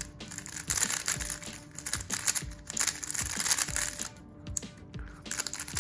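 GAN13 M Maglev FX 3x3 speedcube being turned fast in the hands, its plastic layers clicking and clacking in rapid runs with short pauses.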